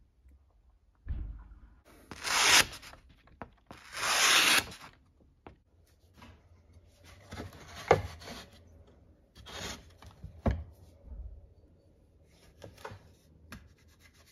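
Handling noises on a wooden workbench: a low thump, then two rubbing swishes about two and four seconds in, followed by scattered knocks and taps as things are moved and set down on the wood.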